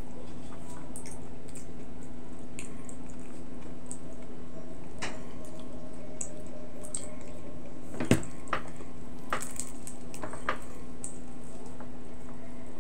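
Eating with bare hands: squishy chewing and fingers pressing rice and picking at fried tilapia, with scattered small clicks. One sharper click comes about eight seconds in, over a steady low hum.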